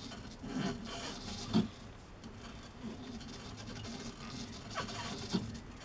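A few light knocks and handling sounds from parts being adjusted during a workpiece set-up, the loudest about a second and a half in.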